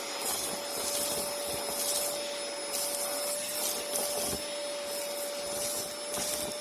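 Vacuum cleaner running with a steady motor whine over a rushing hiss, with repeated louder hissing surges as it sucks up a test mess of debris.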